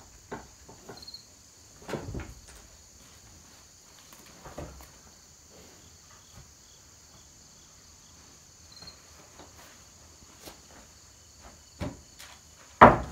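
Wooden boards knocking and clattering as they are handled and set down, a few separate knocks with the loudest near the end. A steady high insect chirring runs underneath.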